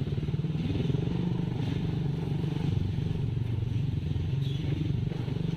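Motor vehicle engine running steadily, a continuous low hum.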